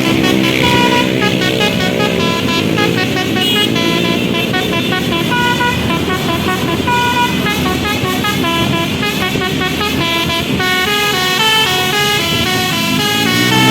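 Basuri telolet bus horn playing a long, fast melody of stepping notes, the multi-tone horn switching pitch several times a second without a break. A vehicle engine runs underneath, most audible at the start and near the end.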